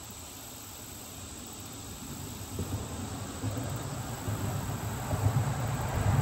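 Steady chirring of insects, with a low rumble that builds up from about halfway through and becomes the loudest sound.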